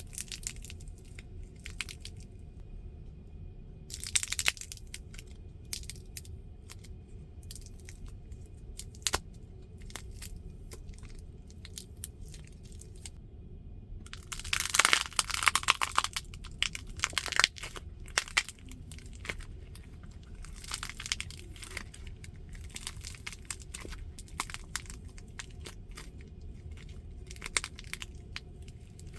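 Crisp crunching and crackling of duros, puffed fried wheat-flour snacks, with irregular snaps throughout and dense loud clusters of crunching twice, briefly about four seconds in and for a few seconds around the middle.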